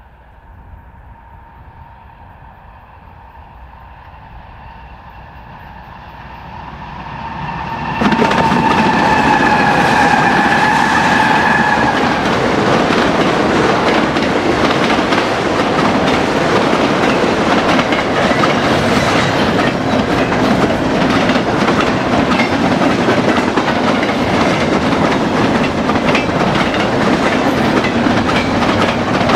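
Union Pacific freight train's diesel locomotives approaching, with a high steady whine growing louder. About eight seconds in the lead units pass and the sound jumps sharply, the whine dipping in pitch. Then the autorack and double-stack cars roll by with a steady clickety-clack of wheels on the rails.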